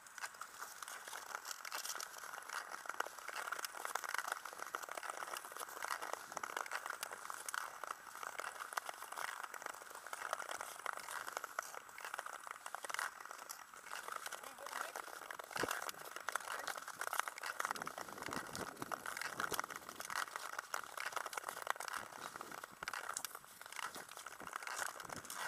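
Ice skate blades scraping and crackling over natural ice as the skater strokes along, a continuous gritty hiss.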